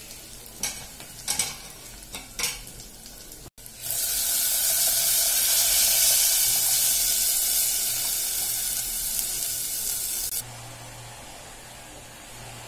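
Tamarind water poured into a clay pot of onions and garlic frying in hot sesame oil, setting off a loud sizzle that lasts about six seconds and cuts off suddenly. Before it, a few light taps; after it, a faint steady hiss.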